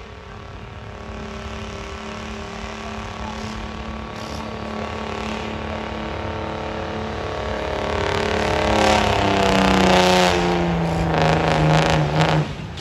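Diesel engine of a modified International Paystar lorry running hard as it pulls a tractor-pulling sled, getting steadily louder. About nine seconds in the engine note drops in pitch as the lorry slows under the sled's load, and it cuts off near the end as the pull finishes.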